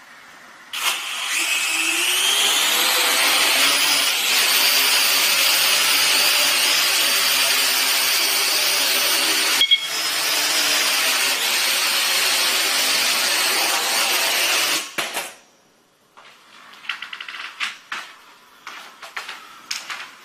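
Small quadcopter drone's rotors spin up about a second in with a rising whine, run steady as it flies, and cut off suddenly about fifteen seconds in. A few light clicks and knocks follow.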